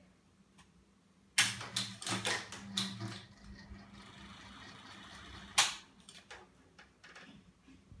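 A Zhonglian mini ceiling fan being worked. A loud sharp click is followed by a run of clicks and knocks over the low hum of the fan motor, then a steady whirr, then a second sharp click and a few lighter clicks.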